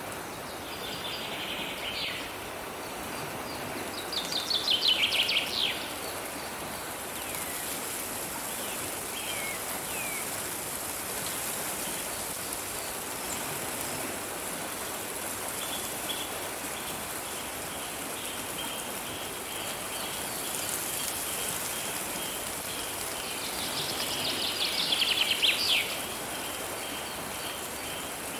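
Steady flowing water of a stream with songbirds calling over it: short trilled phrases, the loudest about five seconds in and again near the end, scattered chirps, and a long run of quick repeated notes in the second half.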